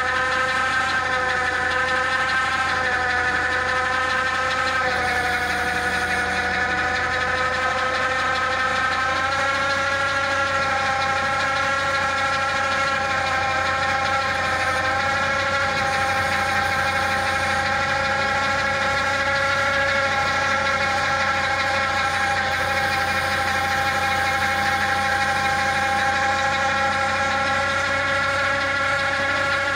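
Massey Ferguson 9500 tractor running steadily under load to power a hydraulic pile-boring auger as it drills into soil, with a steady high whine from the hydraulic drive that shifts slightly in pitch a few times.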